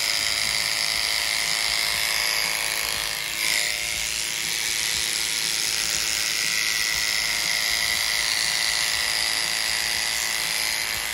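Electric horse clippers buzzing steadily as the blade cuts through a horse's long, thick coat, with a brief change in tone about three and a half seconds in.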